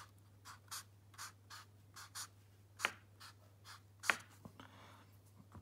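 A felt-tip permanent marker scratching across paper in short strokes, about two a second, as it draws zigzag lines. Two strokes, about three and four seconds in, are sharper and louder than the rest.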